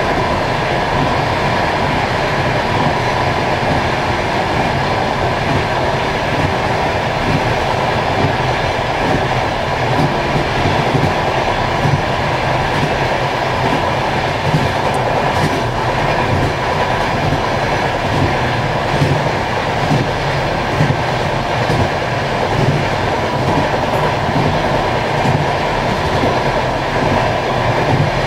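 Passenger train running along the track: a steady rumble and hiss of wheels on rails, with a few light clicks scattered through it.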